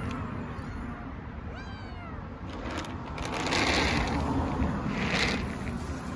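Hungry stray kittens meowing to beg for food: a quick run of short meows that rise and fall in pitch about a second and a half in, then two louder cries around the middle and near the end. A steady low rumble runs underneath.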